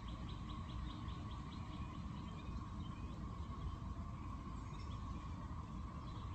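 A bird's rapid high-pitched chirping trill, about eight notes a second, stopping about a second and a half in, over a low steady background rumble and a faint steady hum.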